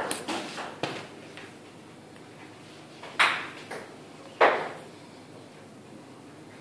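Ping-pong balls striking the table and paddle during serve practice: a few fading bounces right at the start, then two sharp pocks about three and four and a half seconds in, each with a short ringing tail.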